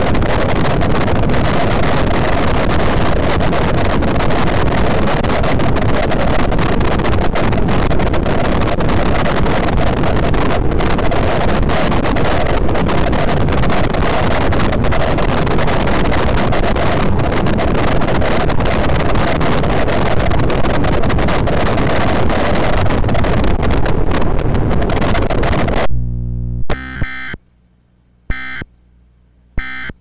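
Loud, steady rushing static fills the alert audio, then cuts off about 26 seconds in. It is followed by three short EAS data-burst squawks about a second apart from a HollyAnne MIP-921 encoder, the end-of-message signal that closes the alert.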